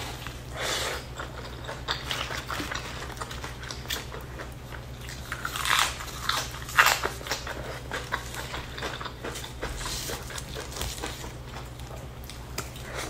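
Close-miked eating: chewing and biting with wet mouth clicks and smacks, the sounds of chicken, rice and raw lettuce eaten by hand. The loudest crunches come about six and seven seconds in, as a fresh lettuce leaf is bitten. A steady low hum runs underneath.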